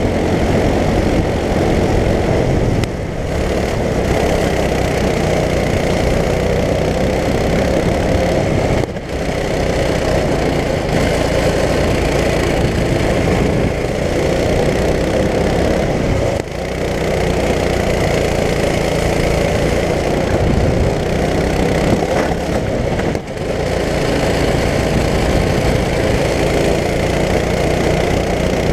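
Onboard sound of a racing go-kart's engine running hard at high revs through a lap, dropping briefly four times, about every six or seven seconds, as the throttle comes off for corners.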